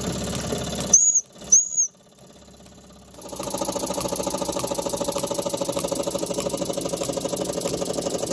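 A small model steam engine running steadily, its flywheel and line-shaft turning with a constant hum. About a second in come two short high chirps, then a quieter second before the running sound comes back.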